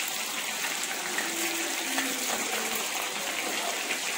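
Marinated chicken pieces frying in hot coconut oil in a pan, a steady sizzle, as a steel spoon turns them over with a few light clicks.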